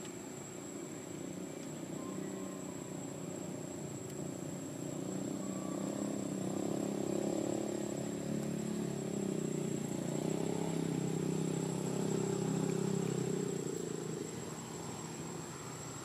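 A distant engine hum that swells from about five seconds in and fades again near the end, over a thin, steady high-pitched whine.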